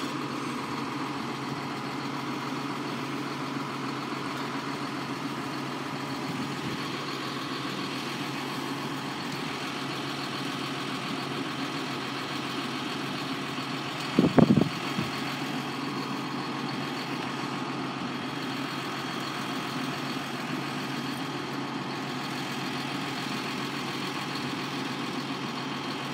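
Tractor engine idling steadily, with a short loud knock about fourteen seconds in.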